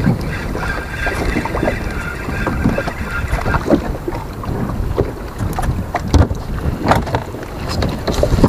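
Wind buffeting the microphone aboard a small open boat, a steady low rumble, with a few sharp knocks about six to seven seconds in.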